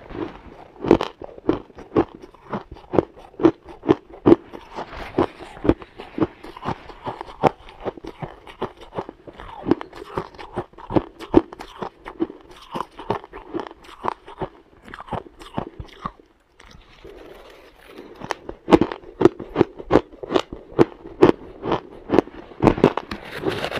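Shaved ice being bitten and chewed, a steady run of crisp crunches about two to three a second, with a short pause about sixteen seconds in.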